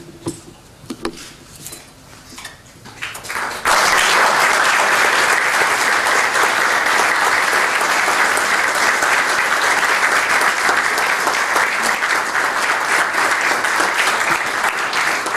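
Audience applause: a few scattered claps, then the room breaks into steady clapping about four seconds in that carries on to the end.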